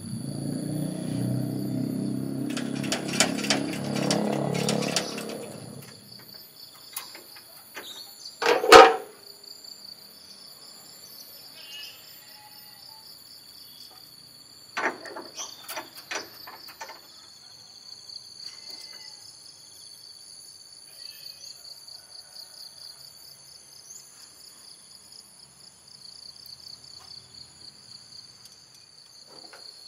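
ZIL-164 truck's six-cylinder petrol engine running, then stopping about six seconds in. After that a steady high drone of insects, one short loud bang near nine seconds, and a few light clinks a few seconds later.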